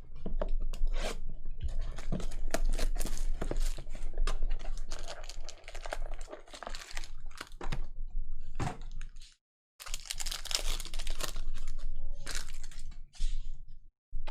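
Trading-card pack wrappers being torn open and crinkled, a dense crackling with a brief break about nine and a half seconds in.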